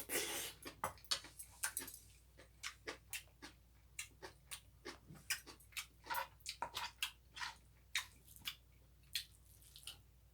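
A person eating close to the microphone: irregular wet chewing and mouth-smacking clicks, several a second.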